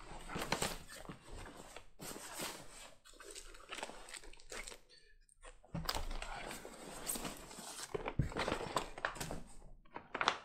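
Rustling and crinkling of a clear vinyl zippered bag and jacket fabric as a folded jacket is pulled out and handled, with light knocks of packaging being set down. The handling comes in irregular spells, stopping briefly about halfway through.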